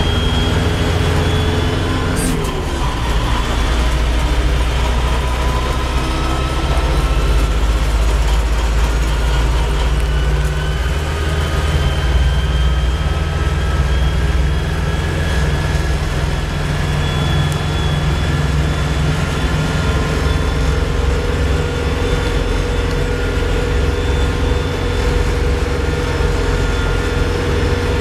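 LS XU5055 tractor's diesel engine running steadily while the tractor drives, heard from inside the closed cab, with a faint high whine that drifts slowly up and down in pitch over the engine note.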